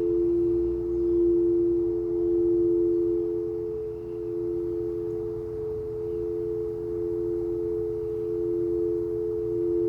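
Singing bowl ringing in a long steady sustain, two close tones held together with a slow wavering swell and fade.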